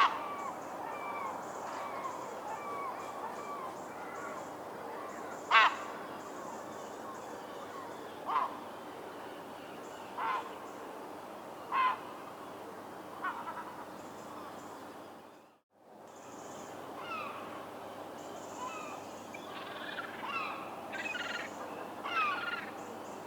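Herring gulls calling: loud, short, sharp calls spaced a few seconds apart over fainter gull calls and a steady background hiss. About two-thirds through the sound drops out briefly, and after that the calls come closer together near the end.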